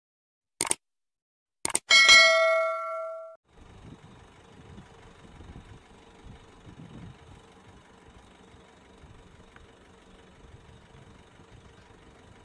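Subscribe-button sound effect: a couple of sharp mouse clicks, then a bright bell ding that rings out for about a second and a half. After it, a faint steady hum from the distant engines of a Boeing 737-300 landing.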